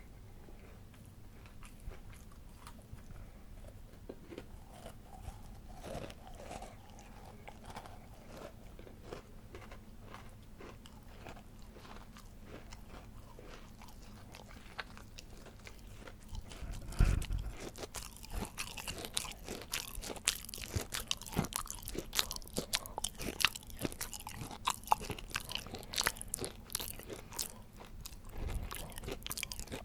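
Close-miked mouth sounds of a person eating cake: quiet chewing at first, then a little past halfway a loud bite followed by busy chewing full of sharp crunching clicks.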